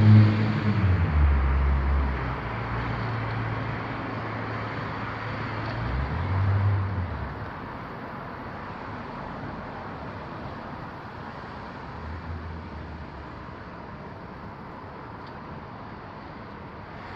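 Road traffic: a vehicle's low engine hum and road noise that fade away over the first several seconds, leaving a steady background of distant traffic with a few brief low rumbles.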